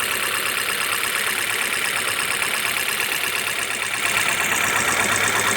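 Freshly overhauled Jeep Compass four-cylinder petrol engine idling steadily after its rebuild. It gets a little louder about four seconds in.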